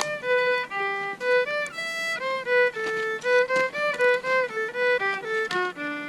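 Background instrumental music: a single lead instrument plays a melody of held notes with short slides between them.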